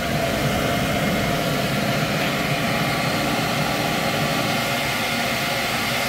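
Beckett commercial gas burner's blower running steadily, a constant whir with a few steady hum tones.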